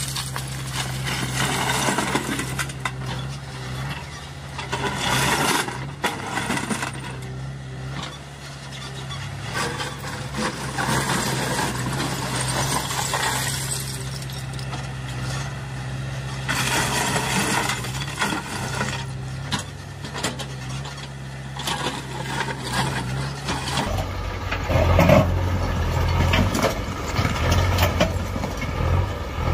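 JCB 3DX backhoe loader's diesel engine running steadily while broken stone clatters in repeated bursts as the bucket digs into the rock pile and dumps loads into a tractor trolley. The engine note changes about three-quarters of the way through.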